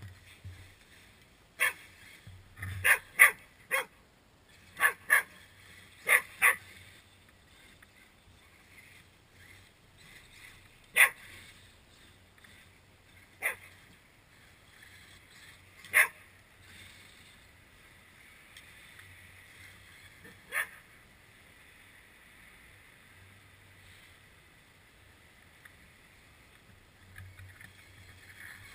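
Mixed-breed dog barking in short, sharp single barks: a quick run of about eight in the first seven seconds, then four more spaced a few seconds apart.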